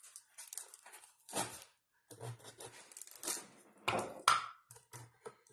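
Paper and tape tearing in a string of short, ragged rips as the sealed end of a cardboard poster mailing tube is torn open, with the two loudest rips about four seconds in.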